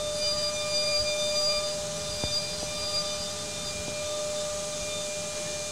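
High-speed spindle of a DATRON M8 Cube CNC milling machine running a long insert cutting tool through roughing cuts on a small part: a steady high whine of several pitches over a hiss, with a few faint ticks.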